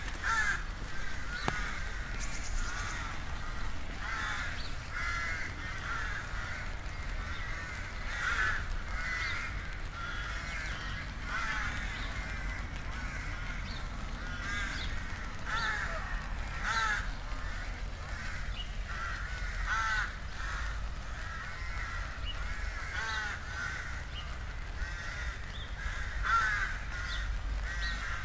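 Birds calling over and over, short arched calls coming about once or twice a second, over a steady low rumble.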